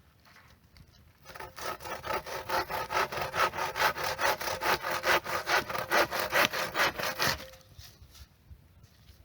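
Hand saw cutting through wood with quick, even back-and-forth strokes, starting about a second in and stopping near the end.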